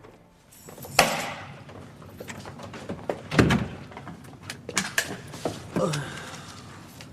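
A sharp knock about a second in and a heavier thud about two and a half seconds later, followed by several lighter clicks and taps.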